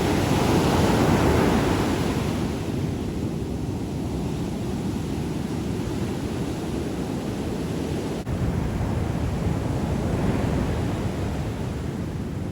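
Heavy storm surf: big waves breaking and washing in from a sea whipped up by an approaching hurricane, with wind buffeting the microphone. The surf swells louder in the first couple of seconds and again near ten seconds.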